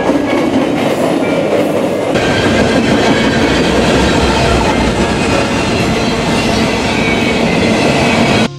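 A freight train rolling past close by: a loud, steady rumble and rattle of wheels on rail with some clickety-clack. The sound changes abruptly about two seconds in from one passing train to another, and cuts off suddenly near the end.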